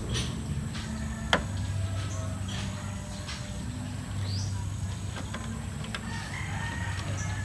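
A radiator cap is worked off the filler neck by hand through a rag, with small clicks and scrapes and one sharp click about a second in. A rooster crows in the background.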